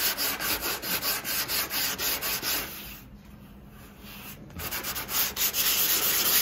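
Folded sandpaper pinched between two fingers rubbed by hand over the filled fiberglass nose repair of an epoxy windsurf board, fairing the curve of the rail. The quick back-and-forth strokes come about four or five a second, stop for a moment a little before the halfway point, then start again.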